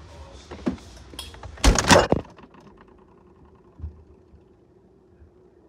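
Refrigerator door shutting with a loud thud about two seconds in, after a few knocks of the phone being handled. Then, from inside the closed fridge, everything is muffled to a faint steady hum.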